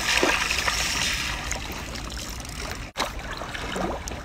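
Pond water sloshing and trickling after a German shepherd's splash through it, fading over the first two seconds. The sound cuts out for an instant about three seconds in.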